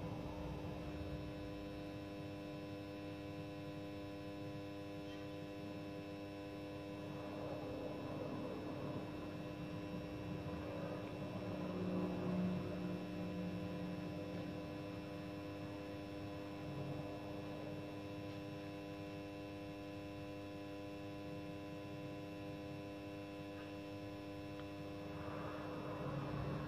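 Steady electrical hum made of several constant tones, swelling a little about halfway through.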